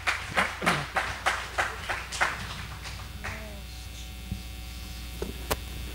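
Rhythmic handclapping at about three claps a second, fading out over the first two and a half seconds, over a steady hum from the sound system; a single sharp click about five and a half seconds in.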